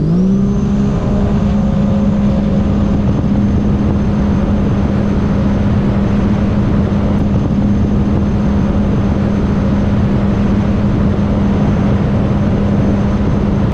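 2022 Sea-Doo RXP-X personal watercraft's supercharged Rotax three-cylinder engine running hard at speed, its pitch climbing during the first second and then holding steady. Heavy rushing noise of water and wind runs under it.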